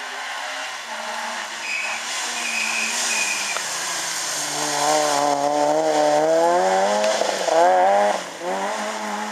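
Rally car engine under hard load as the car approaches and passes close by. The revs rise and fall several times through gear changes, and it is loudest during the pass.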